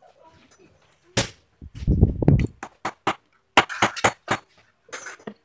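A hammer striking the wooden frame of a sofa base in an irregular run of sharp knocks, some heavy and thudding, bunched into two quick clusters.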